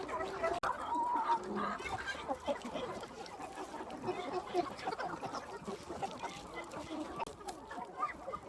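A flock of free-range chickens clucking, with many short calls overlapping one another.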